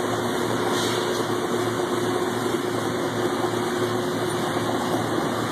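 Electroslag weld in progress: a steady boiling-water sound from the molten slag bath, with a steady machine hum under it. Boiling water rather than popcorn or bacon is the sound of a stable electroslag weld.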